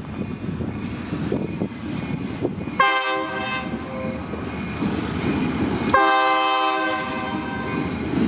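Freight locomotive's multi-tone air horn sounding two blasts, about three seconds apart, the second a little longer, over the steady rumble of the passing train.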